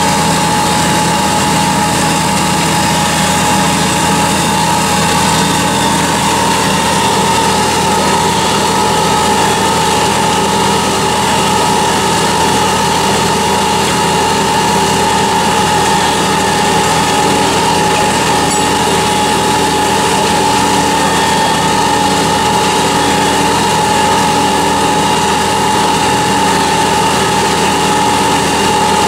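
Deutz Agrotrac 610 tractor engine running steadily under load while pulling a disc harrow, with a steady whine over it.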